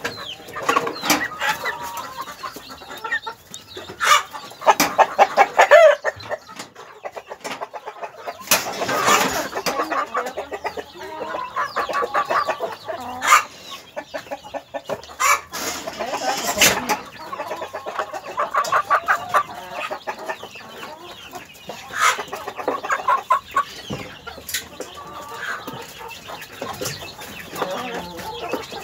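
A flock of chickens clucking and calling, many overlapping short calls throughout, with a few sharp knocks now and then.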